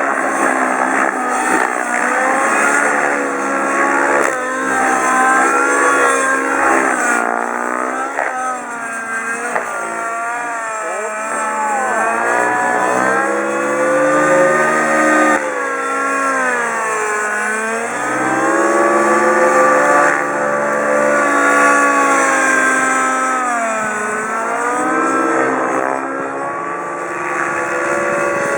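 Nitro glow engine and rotors of a T-REX 700N radio-controlled helicopter in flight, the engine note rising and falling in pitch over and over as it manoeuvres. It is running with its muffler missing a mounting screw, the cause of the odd noise that made the pilot land.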